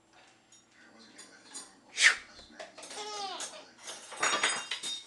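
A baby laughing and squealing in short bursts, with a light clatter of pots and dishes from the stove.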